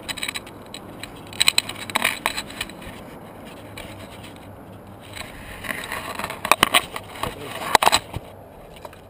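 Close scraping and sharp clicks in two spells, about a second and a half in and again from about five and a half to eight seconds: the sound of the GoPro's wearer shifting position on rock and gravel.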